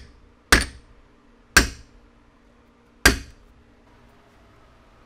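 A steel hammer strikes the face of a ball-peen hammer held against a bent aluminium part clamped in a vise, driving the metal back flat: three sharp metal-on-metal blows, each with a brief ring, spaced one to one and a half seconds apart.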